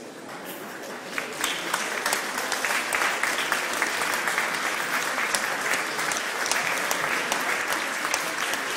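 Audience applauding, the clapping swelling over the first two seconds and then holding steady.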